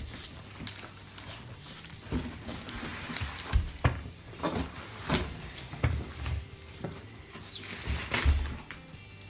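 Unboxing noises: irregular knocks, clunks and rustles as packaging and metal bar parts are handled and set down, with a few heavier thumps.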